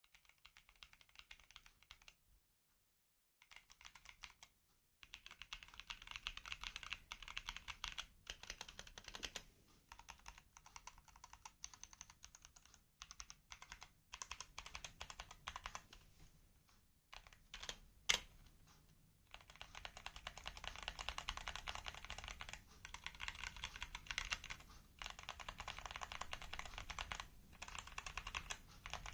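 Fast typing on a custom hot-swap mechanical keyboard: a dense clatter of keystrokes in long runs broken by short pauses, with one sharp, louder clack about eighteen seconds in.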